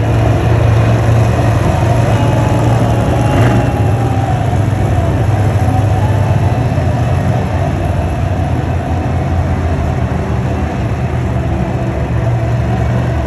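Monster truck's supercharged V8 engine running loud and steady.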